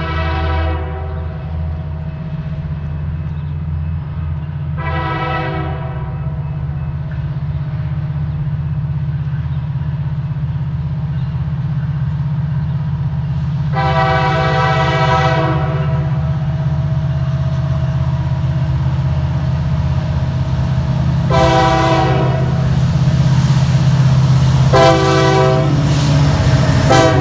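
Air horn of an approaching Norfolk Southern SD70ACU diesel locomotive sounding a series of blasts, short and long, the last one held long. Under the horn the low rumble of the diesel engines grows steadily louder as the train nears.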